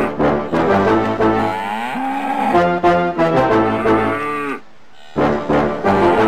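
Intro jingle of brass-like music mixed with mooing calls, in two phrases with a short break about three-quarters of the way through.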